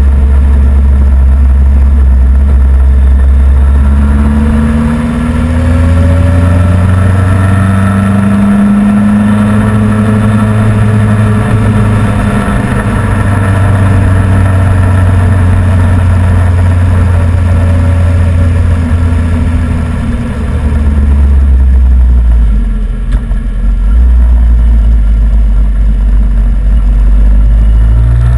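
Motorcycle engine running while riding, heard from a bike-mounted camera with wind and road noise over it. The engine note drops and picks up again a few times as the throttle and gears change, with short dips in loudness.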